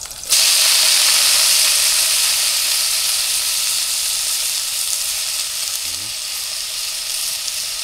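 Greens going into a hot pot over a wood fire, frying with a loud sizzle. The sizzle starts suddenly just after the start, then settles into a steady hiss that eases slightly.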